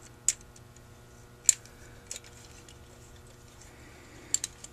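Scattered sharp clicks of small metal carburetor parts being handled during reassembly: about five in all, the loudest about a second and a half in, with a quick pair near the end.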